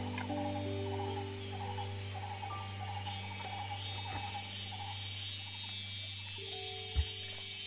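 Steady high-pitched drone of insects, with soft background music of held low notes that change now and then. A repeating chirping trill runs through the first few seconds, and there is one dull thump about seven seconds in.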